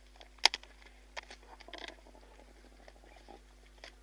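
Spotted hyena crunching buffalo bones: a sharp crack about half a second in, then a spell of crunching and gnawing with scattered clicks.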